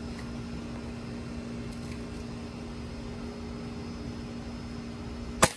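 A steady mechanical hum, then one sharp crack of a .22 calibre air rifle shot near the end.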